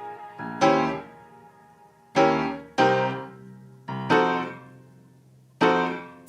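Background music: slow piano chords, about five in all, each struck and left to ring and fade before the next.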